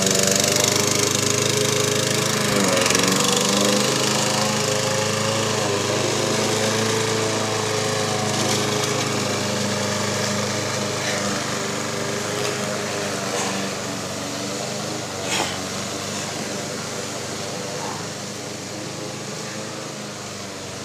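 A small engine running steadily with a few pitch dips, the first about two to three seconds in, slowly fading toward the end. A single sharp click comes about fifteen seconds in.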